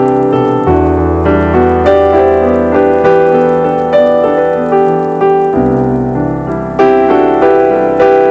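Background piano music: a slow melody of sustained notes over held bass notes.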